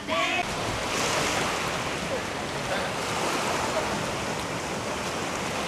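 Surf washing on a beach, with wind blowing on the microphone as a steady rushing noise. A voice is heard briefly at the very start.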